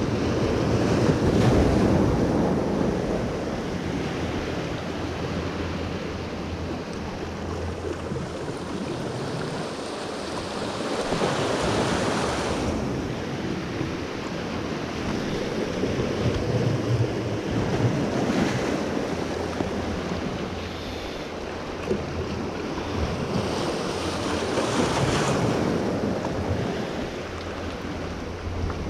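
Ocean surf washing in among the boulders of a rock jetty, swelling and easing every several seconds, with wind buffeting the microphone.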